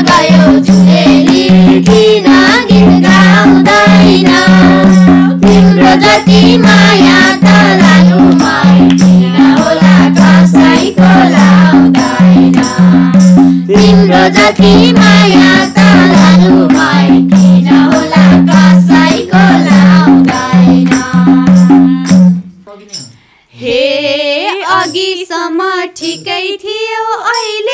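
Nepali folk dohori singing to a madal hand drum played in a steady rhythm, with hand clapping. The drum stops suddenly about five seconds before the end, and two women then sing the next verse without the drum.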